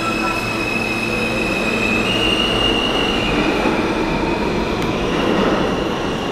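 R160 subway train running out of the station, a steady rumble of wheels on rail with high squealing tones over it, one of which steps up in pitch about two seconds in.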